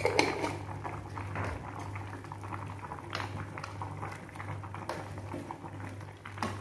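A pot of jackfruit and pork-bone soup bubbling at the boil while a metal ladle stirs it, with a few sharp clicks of the ladle against the metal pot. A steady low hum runs underneath.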